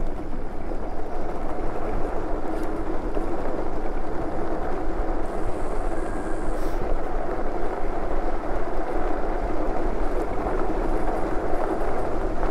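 Super73 electric bike's tyres rolling fast over a bumpy dirt trail: a continuous rumbling road noise that jitters with the bumps.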